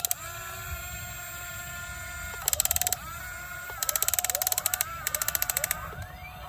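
Small electric motors of an RC toy excavator whining at steady pitches, rising in pitch now and then, with three bursts of rapid, even clicking from the gearing.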